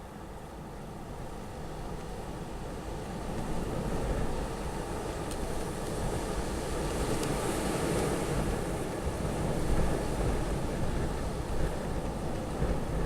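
Storm wind blowing in gusts, building in strength over the first four seconds and then surging unevenly, with a deep rumble of wind on the microphone.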